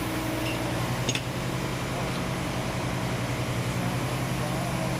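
Vacuum excavator running at a steady speed, a continuous low mechanical hum with a single click about a second in.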